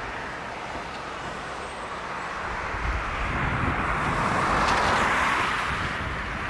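Strong wind buffeting the microphone as a steady rush that swells and peaks about five seconds in, with one brief click near the peak.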